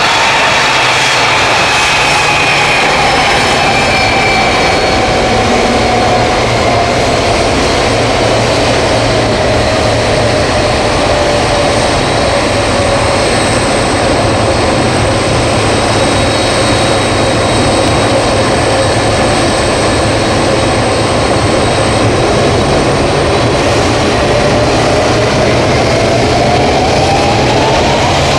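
Jet airliner's turbofan engines running at low power: a loud steady roar with a high whine that slowly falls in pitch, holds, then climbs near the end as the engines spool up.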